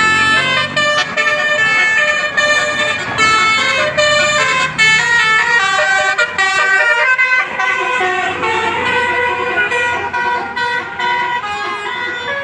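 Indonesian bus 'telolet' musical horn playing a quick melody, several horn tones sounding together and stepping to new notes every fraction of a second, sounded as a playful greeting.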